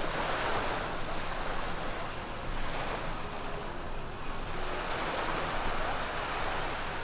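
Ocean surf washing onto the beach, coming in surges that swell and fade every few seconds.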